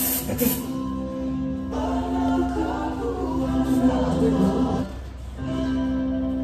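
Background song with singing.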